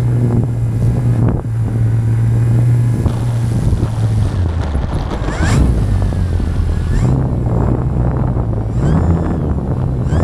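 Motor and propeller of a small radio-controlled airplane running, heard from a camera mounted on the plane, with wind rush; the pitch of the hum shifts a few times as the throttle changes.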